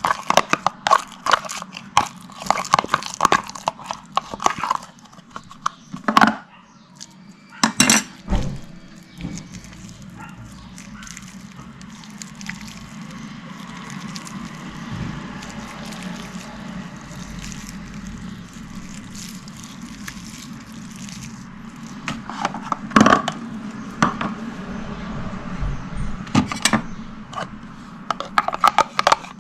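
Soft coloured slime being squeezed and pulled by hand, giving rapid sticky clicks and pops. They thin out to a few single sharp pops in the middle, where only a faint steady hum is left, and quicken again near the end.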